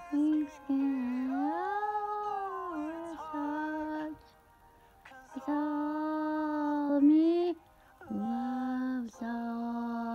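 A woman singing long held notes, in four phrases with short pauses between them.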